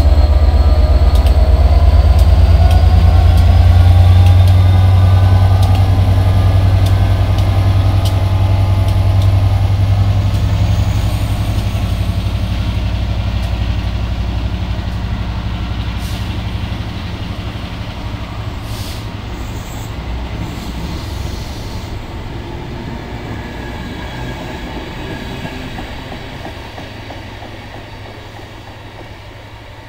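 Class 67 diesel-electric locomotive's two-stroke V12 engine working hard as it departs with a rising whine, then fading steadily as the train draws away, with the coaches' wheels rolling over the track.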